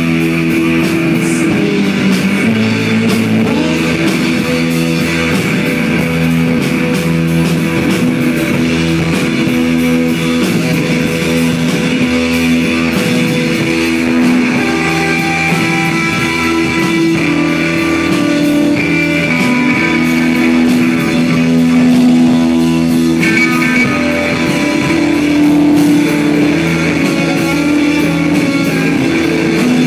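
Live rock band playing an instrumental passage: electric guitar with held, droning notes over a steady drum beat and bass, recorded loud from the audience.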